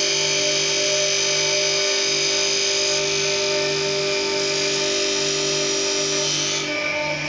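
CNC lathe running, a steady machine whine made of several held tones, with a low hum that cuts in and out about once a second. Near the end the high hiss drops away while the tones carry on.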